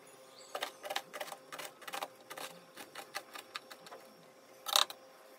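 Kitchen knife chopping an onion on a plastic cutting board: a run of quick, uneven taps, with one louder knock near the end.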